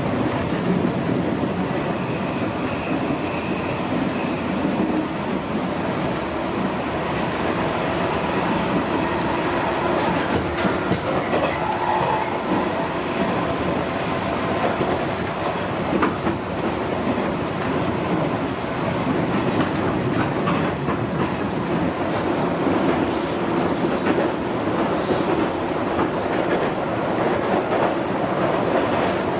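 Cabin running noise of a JR 201 series commuter train under way: a steady rumble of wheels on rail, with clickety-clack as the wheels cross rail joints.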